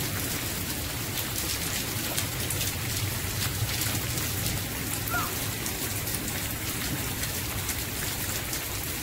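Steady rain falling on a wet street: an even hiss with scattered drop ticks.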